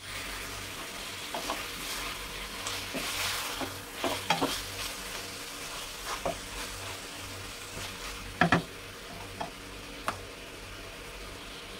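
Raw chicken pieces with ginger and lemongrass sizzling in a nonstick wok on a gas burner, being sautéed before any liquid goes in. A wooden spatula stirs them, knocking and scraping against the pan now and then, with a few knocks a little before halfway and a sharper one about two-thirds through.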